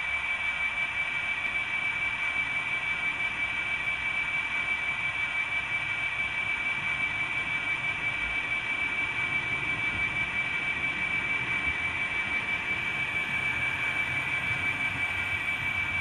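00 gauge model Class 66 locomotives running on the layout track: a steady high motor whine over an even hiss.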